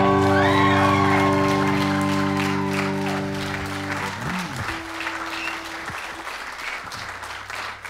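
A rock band's final chord held on electric guitar, bass and keyboard, stopping about four seconds in, over audience applause with a few cheers; the applause carries on alone after the band stops.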